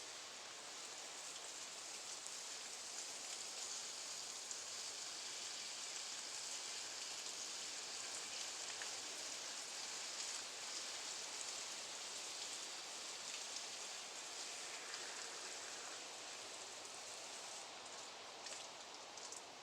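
Water running steadily over a glazed stoneware pot to soak it, a fairly faint, even hiss that eases slightly over the last few seconds.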